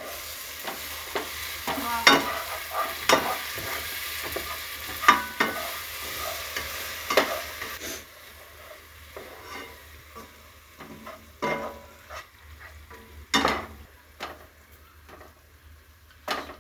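Onion, tomato and chilli masala sizzling in a pan while a spoon stirs it, scraping and knocking against the pan again and again. The sizzle drops away about halfway through, leaving mostly the scrapes and knocks.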